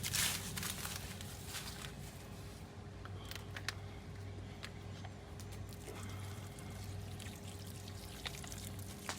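Garden dirt being scooped, sprinkled and rubbed onto the outside of a cooking pot, so that soot will wash off easily. There is a louder rustle at the start, then soft gritty trickling and scattered small clicks over a steady low hum.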